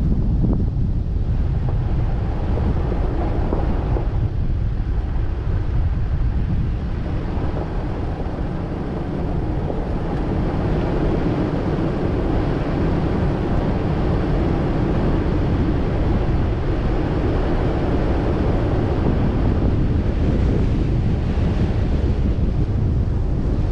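Steady wind buffeting the microphone, over the noise of a vehicle driving along a dirt road.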